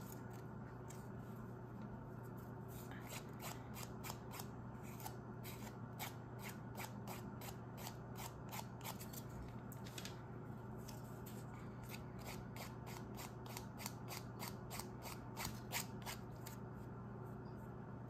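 A flat wooden stick scraping along the rim of a hardened resin coaster in many short, quick strokes, about three a second, working off overspilled resin.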